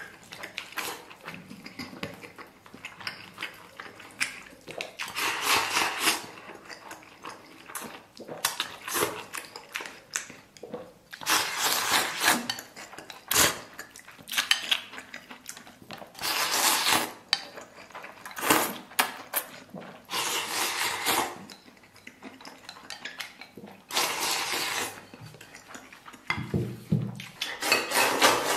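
Chopsticks clicking and scraping against a ceramic bowl as rice is shoveled into the mouth, with noisy bursts of eating and slurping every few seconds.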